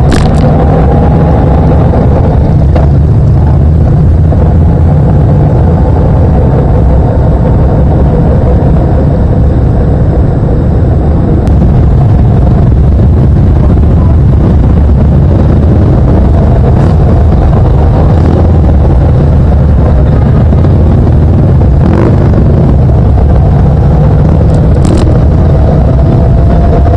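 Motorcycle riding through city traffic: a steady, heavy wind rumble on the bike-mounted microphone over the running engine, with a few brief clicks.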